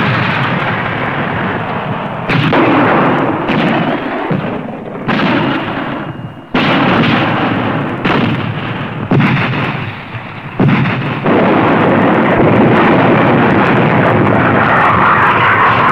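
Artillery guns firing: about five heavy blasts in the first eleven seconds, each dying away in a noisy rumble, then a dense, continuous rumble of firing for the last few seconds.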